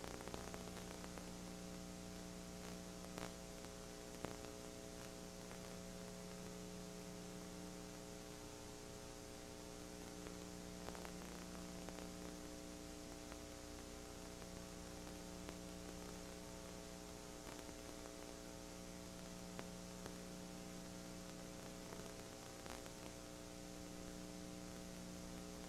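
Steady electrical hum with static hiss, several steady tones layered together, broken only by a few faint clicks.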